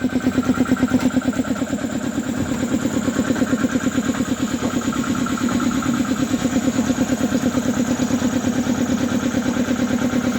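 SWAN 1 HP piston air compressor pump, driven by an electric motor, running steadily with a fast, even pumping pulse.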